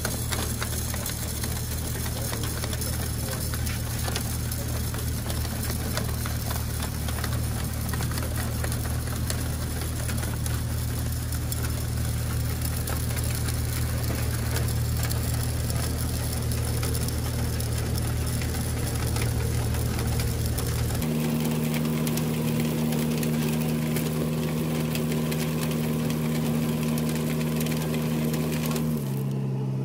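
Fertilizer dispenser's drive mechanism running with a steady machine hum. About two-thirds of the way through the hum changes to a clearer, higher tone, which drops a little in pitch near the end.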